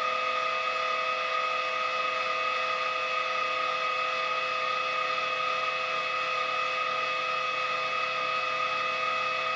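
Vertical milling machine running, its end mill cutting along the wall of a slot in a metal workpiece as the table feeds: a steady high-pitched whine of several held tones over a cutting hiss. The cut is widening the slot, taking 3 mm off one side.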